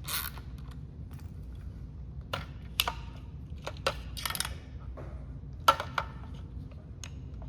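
Scattered clicks and knocks of a roof-rack quick release mount being worked by hand: the tension bolt turned with an Allen wrench and the latch closed onto the crossbar. There are about eight separate clicks, a second or so apart, with the sharpest near the middle.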